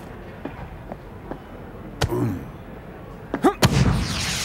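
Cartoon sound effects: a thud about two seconds in, then a football kicked hard, two sharp hits near the end followed by a rushing whoosh that fades.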